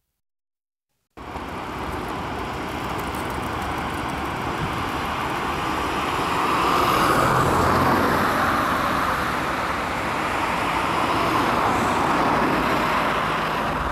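A second of silence, then steady road traffic noise with no speech, swelling as vehicles go past about six seconds in and again near the end.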